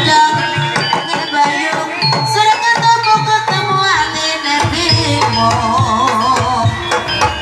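Traditional Sundanese dance accompaniment music: kendang hand-drum strokes that bend in pitch, under a melody with a wavering held line about two-thirds of the way through. Deeper drum strokes join after about four and a half seconds.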